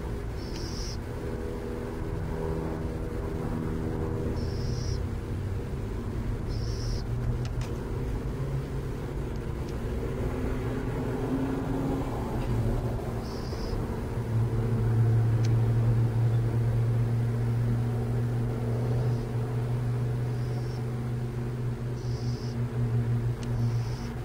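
A motor vehicle's engine running nearby, a low steady hum that swells louder about halfway through. Short high-pitched bursts come and go over it every few seconds.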